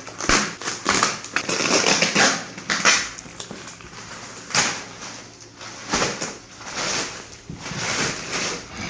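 A cardboard parcel being torn open by hand: repeated ripping and rustling of packing with scattered knocks and scrapes.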